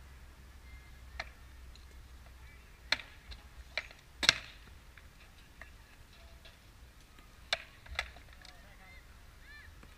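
Rattan practice swords striking shields and armour in sword-and-shield sparring: sharp, brief knocks, one about a second in, a quick cluster from about three to four seconds in with the loudest blow, and two more around eight seconds.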